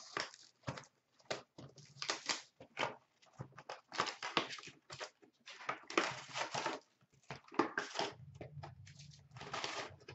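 Cardboard card boxes and foil card packs being handled: irregular crinkling, rustling and scraping as hands open a hockey card box and pull out its packs.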